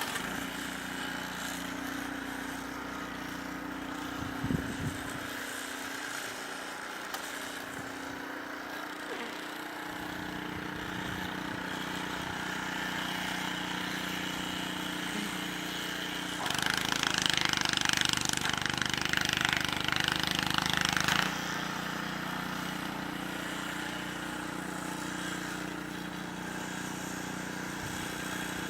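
A small engine running steadily, with a louder hissing rush from about 16 to 21 seconds in.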